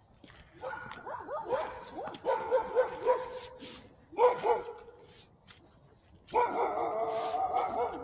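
Dog barking and yelping in rapid, high-pitched bursts: a run of barks from about half a second in to about three seconds, a short burst just after four seconds, and a longer stretch of continuous yapping near the end.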